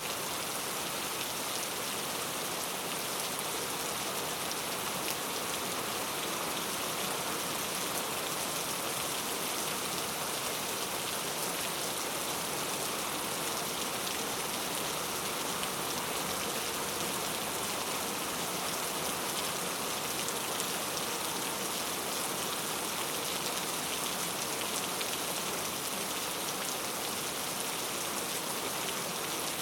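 Heavy rain falling steadily, a dense even hiss of many drops striking surfaces.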